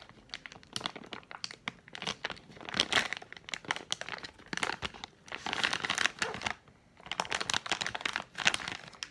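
Plastic candy bag of Tootsie Rolls being crinkled and crumpled by hand, in several bouts of dense crackling with short pauses between them.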